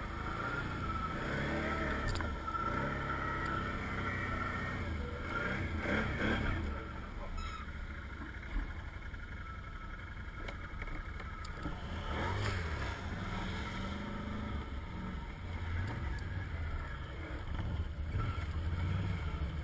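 Can-Am ATV engine running at low revs, the revs rising and falling with the throttle as the quad crawls through mud and into water, with water splashing around it.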